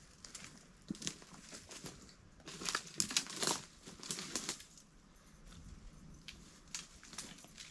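Scattered rustling and light clicks of handling and movement, with a busier patch of crinkly rustling about two and a half to three and a half seconds in.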